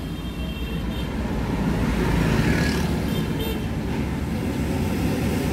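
Inside the cabin of a stationary car: a steady low hum from the idling engine and the ventilation blower fan pushing air through the vents, the car's air conditioning not working.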